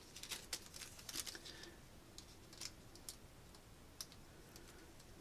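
Faint, scattered clicks and crinkles of a small piece of transfer tape with a vinyl decal and a square of wax paper being handled and pressed together between the fingers, busiest in the first second and a half.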